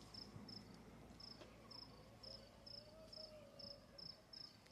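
Faint cricket chirping: short high chirps repeating evenly, about two to three a second.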